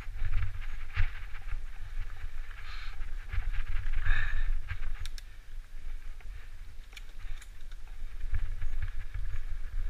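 Mountain bike rolling fast over a dirt singletrack: a steady low rumble from the ride, with scattered clicks and rattles of the bike over the trail.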